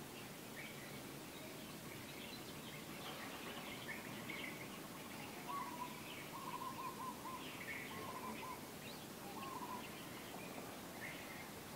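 Birds calling: scattered short, high chirps, and from about halfway a few quick runs of short, lower repeated notes, over a faint steady outdoor background hiss.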